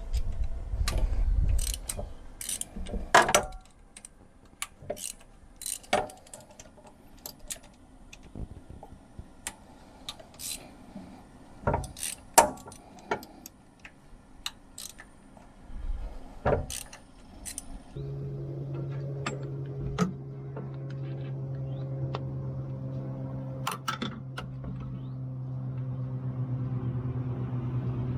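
Metal tools and parts clinking and knocking in scattered sharp clicks while the reverser solenoid housing is worked on. About two-thirds of the way through, a steady low mechanical hum starts and keeps going.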